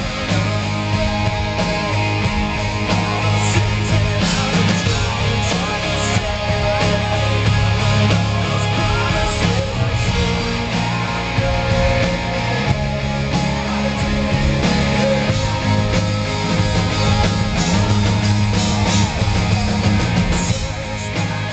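Rock band playing loudly on stage, with electric guitars over a drum kit.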